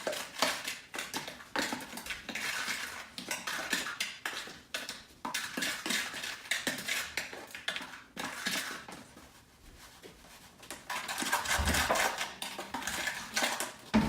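A spoon stirring thick cookie dough in a mixing bowl, with irregular scraping and knocking against the bowl, a brief lull about two-thirds through, then busier handling with a dull thump.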